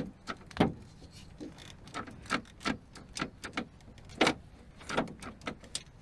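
About a dozen irregular clicks and knocks from a 2010 Honda Civic's door lock mechanism being worked by hand inside the stripped door, as the lock is turned and its latch linkage moves. The lock is working as it should.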